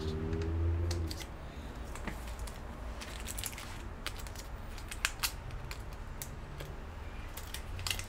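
Scattered light clicks and ticks of small parts and tools being handled during a computer repair, with a couple of sharper clicks about five seconds in. A low droning hum is loudest at the start and stops about a second in.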